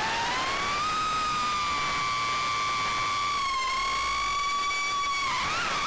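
FPV quadcopter's brushless motors whining in flight: one high pitch with overtones that rises about a second in, holds, then dips and briefly jumps up and back near the end as the throttle changes.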